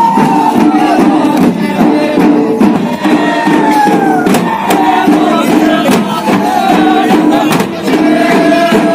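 Adivasi dhol drums and a smaller hand drum beaten in a steady dance rhythm, with a high, wavering melody line gliding over the drumming and crowd noise around it.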